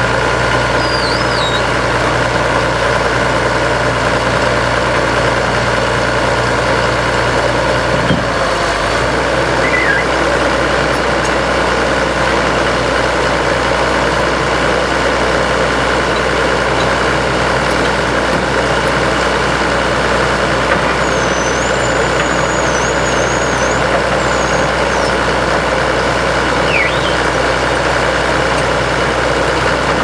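Engine of an Al-Jon Model 400 logger/baler running steadily, with a change in its low drone about eight seconds in. A few faint high wavering chirps sound over it.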